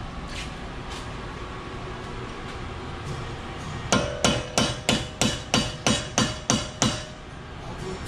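About ten hammer blows on a car's front wheel hub, about three a second, starting about four seconds in, each strike leaving a short metallic ring.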